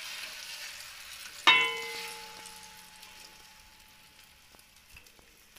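Egg and gram-flour omelette batter sizzling as it hits the hot oiled pan, the hiss dying away over a few seconds. About one and a half seconds in, the glass mixing bowl knocks against the pan with a sharp clang that rings on briefly.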